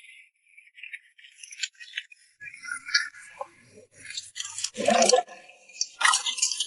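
Kitchen work sounds: irregular clicks, clatter and short scraping noises of utensils and cookware being handled, with a louder knock about five seconds in.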